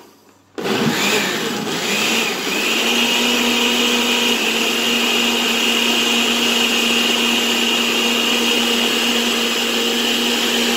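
Countertop blender switched on about half a second in, its motor settling into a steady pitch after about two seconds and running on, blending coconut meat into a thick drink.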